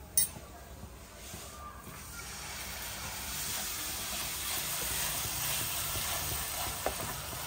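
Diluted ketchup and water being poured into a hot pan of tomato-onion masala, sizzling: a steady hiss that builds from about two seconds in and holds. A sharp click sounds just at the start.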